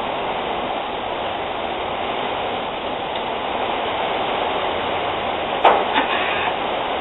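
A steady rushing noise throughout, with a single sharp knock about five and a half seconds in, followed by a couple of lighter clicks.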